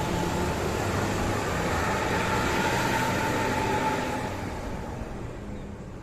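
A bus passing, its engine and road noise loud for about four seconds and then fading away.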